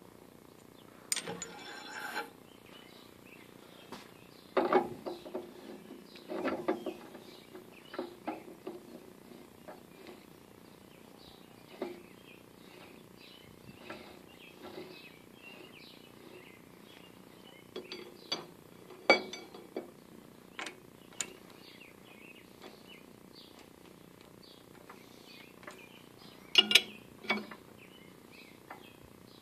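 Scattered metallic clinks and knocks of tools and steel parts being handled and fitted on a metal lathe, with a few sharper clanks a little past the middle and near the end.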